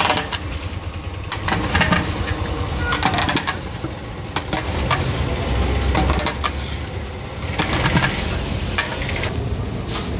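Irregular knocks and clattering, a dozen or so short hits and scrapes, over a steady low rumble.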